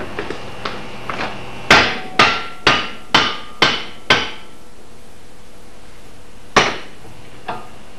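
Hammer blows on an axe handle seated in the axe head's eye: six sharp strikes about half a second apart, then one more a couple of seconds later and a lighter tap near the end, each with a short ring. The handle is being tapped into the eye of a racing axe head for a trial fit.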